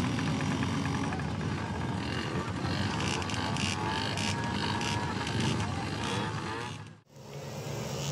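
Motocross motorcycle engines running hard in a race, one engine note rising and then falling in pitch near the middle. The sound cuts out abruptly about seven seconds in, then comes back.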